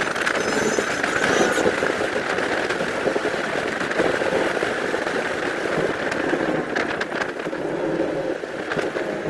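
Road and engine noise inside a moving car, played back sped up, heard as a dense, steady crackling hiss with no clear engine note.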